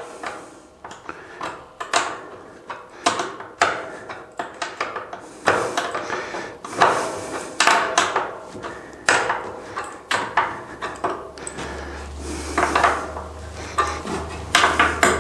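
An adjustable wrench and steel nut clinking and scraping on a threaded rod as the nut is tightened onto a metal loft-ladder frame: irregular metallic clicks and taps.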